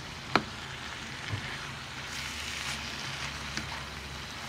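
Minced kefta meat with onions and peppers sizzling steadily as it fries in a large pan, stirred with a wooden spatula. A sharp knock of the spatula against the pan comes just after the start, with a few lighter clicks later.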